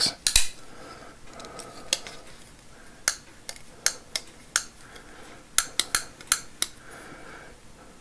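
Titanium framelock flipper knife (Sharp By Design Mini Evo) being flipped open and closed, giving about a dozen sharp metallic clicks, several in quick pairs. The detent clicks twice on each flip, the loudest detent the owner has ever heard, hard to break, and he suspects the knife may be defective.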